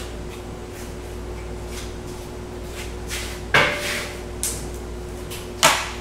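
Two loud metal clunks about two seconds apart, the first ringing briefly, as the cast-iron cylinder head of a Farmall H engine is lifted off its studs and set down. A room air conditioner buzzes steadily underneath.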